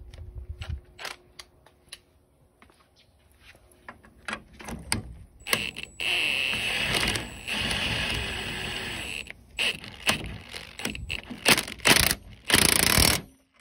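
A powered socket wrench spinning the piston retaining nut down onto a hydraulic cylinder rod: first a few clicks and knocks, then a long run of about four seconds, then several short bursts near the end as the nut is run tight.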